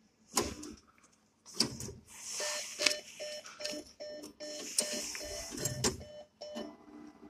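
NCR cash machine's banknote-deposit mechanism running as the bill slot is readied for notes: a couple of sharp clicks, then a stretch of mechanical whirring with a run of short repeated tones, about three a second.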